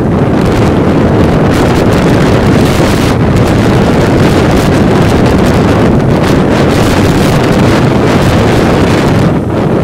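Loud, steady wind rushing over the microphone of a moving motorbike, with the ride's vehicle noise underneath.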